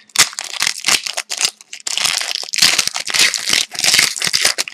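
Wrapper of a hockey card pack being torn open and crinkled: a dense run of crackles and rustles.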